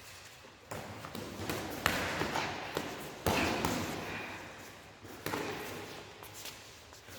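Punches in boxing gloves landing during sparring: irregular sharp thuds, the loudest about two and three seconds in, with shuffling footwork between.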